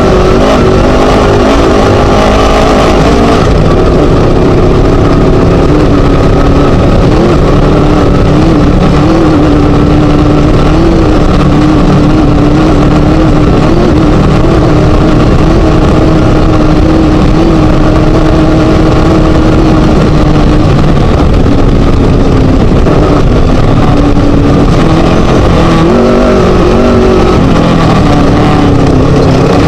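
Class 1 desert racing buggy's Scat V4 engine running loud at race pace. Its pitch rises and falls in the first few seconds and again near the end, and holds nearly steady at high speed in between.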